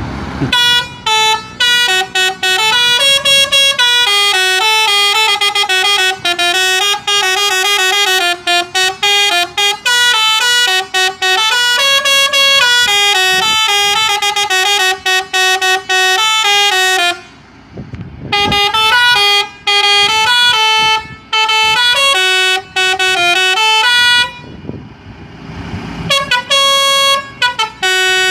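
Lorry's telolet horn, a multi-tone musical air horn, playing a fast tune of quickly stepping notes. It breaks off twice, briefly about two-thirds of the way in and for a couple of seconds near the end, leaving the vehicle's rumble before the tune resumes.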